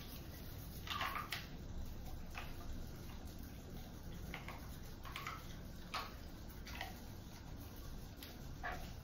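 Toothbrush scrubbing a wet dog's teeth: faint, short, wet scratchy strokes coming irregularly, over a low steady hum.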